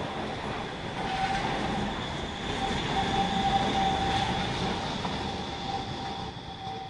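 Kassel tram passing close and taking a curve across a track junction: wheels rumbling on the rails with a steady high-pitched squeal that sets in about a second in, loudest around three to four seconds in, then easing off near the end as it pulls away.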